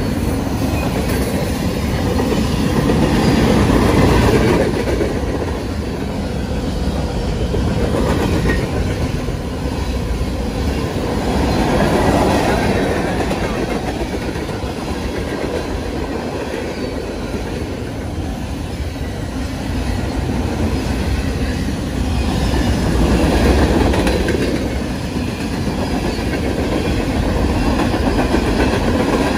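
Freight train cars rolling past close by, their steel wheels running on the rails. The loudness swells and eases every few seconds.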